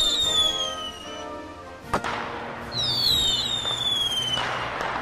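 Fireworks: whistling shells, each a long falling whistle, with a sharp bang about two seconds in. Two more whistles overlap after it, and there is a crackling burst near the end.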